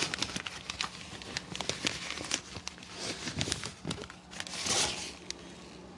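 Crinkling and rustling as something is handled, with many sharp clicks scattered through it and a louder rustle about four and a half seconds in; it quiets down near the end.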